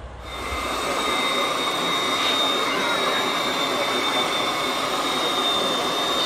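Hydraulic pump of a radio-controlled Komatsu model excavator whining at a steady high pitch over a rushing hiss, coming in within the first second.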